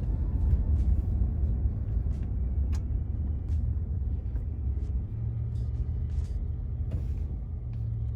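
Motor vehicle running with a steady low rumble, a steadier low hum settling in about five seconds in, and a few light clicks over it.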